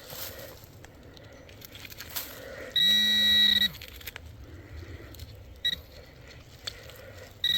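A metal detector's electronic tone sounding twice, each a steady buzz-beep just under a second long, signalling metal in the freshly dug hole, with faint scrapes and clicks of soil being searched between.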